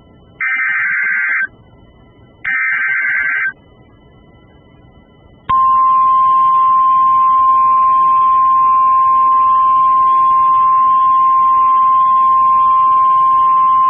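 Emergency Alert System alert: two short rasping digital data bursts about a second apart, the end of the SAME header, then a few seconds later a single steady, piercing attention tone that holds on. It is the signal that a warning follows, here a severe thunderstorm warning.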